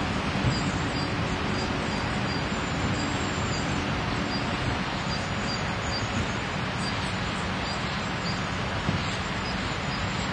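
A steady rushing background noise with a faint, high insect chirp repeating about twice a second, typical of an autumn cricket.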